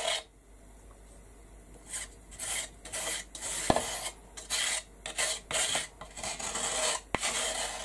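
A thin metal blade scraping across a painted wooden board in repeated short strokes, about two or three a second, taking material off the surface. Quiet for the first couple of seconds, with one sharp click among the strokes.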